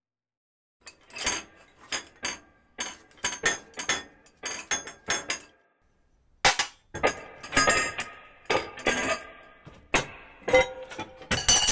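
Silence, then starting about a second in an irregular run of sharp clinks and knocks, several leaving short ringing tones, with a brief pause about six seconds in.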